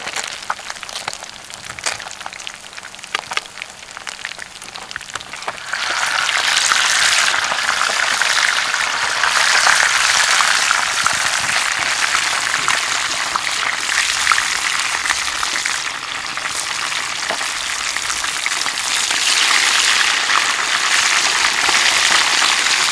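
Fish frying in hot oil in a pan, a steady sizzle dotted with sharp crackles and pops. It grows louder and denser about six seconds in, eases briefly past the middle, then picks up again.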